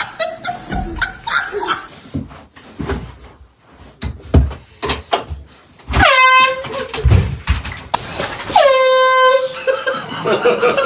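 Two blasts of an air horn: a short one about six seconds in and a longer one near the end. Each starts with a quick drop in pitch, then holds one steady tone. Before them there are voices and a few sharp knocks, one loud one a little past four seconds.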